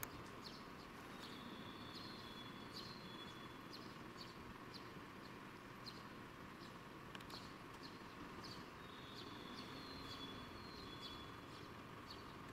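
Faint city ambience: a low, steady hum of distant traffic with small birds chirping high and short, about two chirps a second. A thin high note is held for a couple of seconds twice, early and again near the end.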